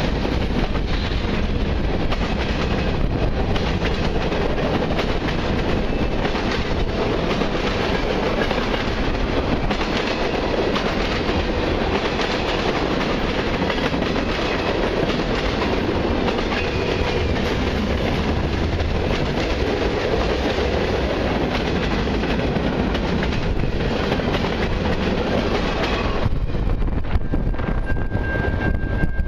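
Freight train cars rolling steadily past, with the clickety-clack of steel wheels over the rail joints. About three-quarters of the way through, the last car clears and the wheel noise drops away, leaving a low rumble and a steady high tone.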